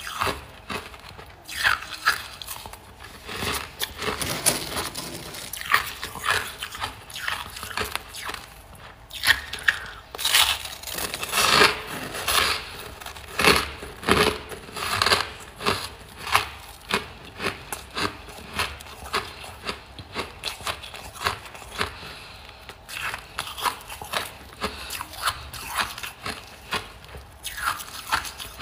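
Hard, powdery chunks of freezer frost being bitten and chewed: a long irregular run of sharp, crisp crunches, densest and loudest about halfway through.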